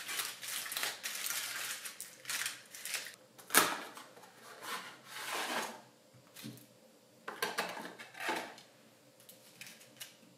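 Aluminium foil crinkling as it is pressed around the crust rim of a frozen pot pie, with the pie tins knocking on a metal sheet pan. The sharpest knock comes about three and a half seconds in, followed by a few softer knocks and rustles.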